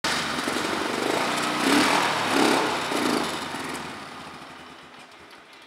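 Polaris Magnum 425 ATV's single-cylinder four-stroke engine running, with three short throttle blips in the first few seconds. After that the sound dies away steadily.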